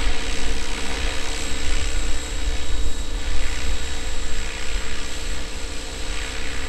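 Radio-controlled model helicopter in flight, its motor and rotor running steadily with a constant whine, under a low rumble of wind on the microphone.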